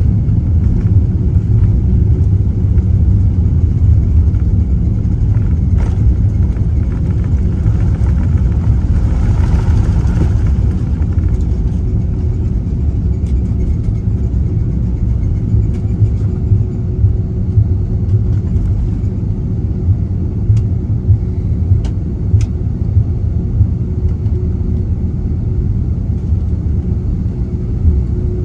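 Cabin noise inside an Airbus A330-300 as it lands: a heavy, steady low rumble with a swell of rushing noise around ten seconds in. The rumble then eases off, with scattered knocks and rattles.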